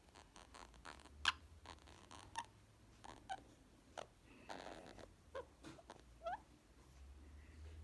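Indian ringneck parrot making faint, scattered sharp clicks and short chirps, about one a second. There is a brief purr-like rasp about four and a half seconds in and a quick rising chirp a little after six seconds.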